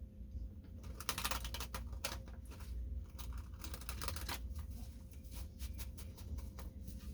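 Light clicks and taps of something being handled by hand, a quick run of clicks about a second in, then scattered single clicks, over a low steady hum.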